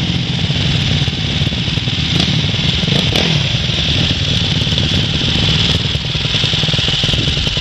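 Off-road motorcycle engines running steadily and loudly.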